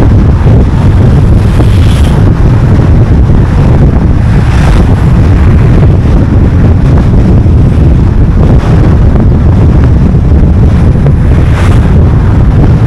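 Car driving at road speed: a loud, steady low rumble of wind and road noise, with a few brief swells of higher hiss.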